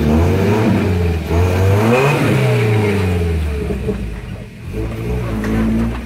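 First-generation Toyota 4Runner's engine revving up and down under load as the truck crawls over rocks, its pitch rising to a peak about two seconds in, easing off, then climbing again near the end.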